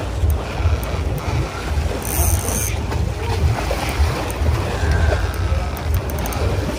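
Wind buffeting the microphone on a boat at sea, a steady low rumble with sea noise over it, and a short hiss about two seconds in.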